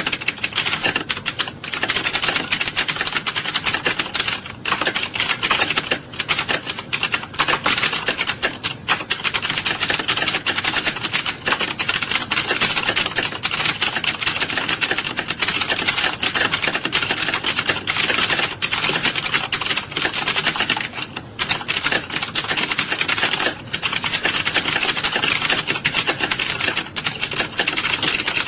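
Many computer keyboards being typed on at once in a typing class, a dense continuous clatter of key clicks with a few brief lulls.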